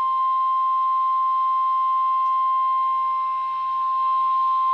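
NOAA Weather Radio warning alarm tone: a single steady high-pitched tone of about 1050 Hz over faint radio static, the attention signal that announces an Emergency Alert System warning broadcast.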